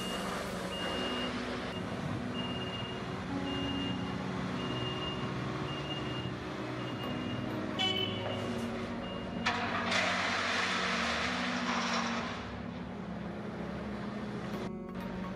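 Reversing alarm of a four-axle MAN TGS tipper truck beeping about once a second over its idling diesel engine; the beeping stops about nine seconds in. Then an excavator bucket tips a load of gravel into the truck's steel tipper body, a rush of falling stone lasting about two seconds.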